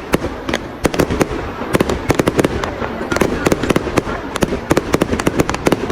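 Fireworks going off: a dense, irregular run of sharp bangs and crackling pops, several a second.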